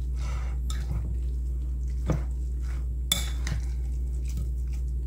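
Hands tossing and squishing shrimp, crab and salsa in a glass mixing bowl: soft wet rustling with a couple of sharper clicks about two and three seconds in, over a steady low hum.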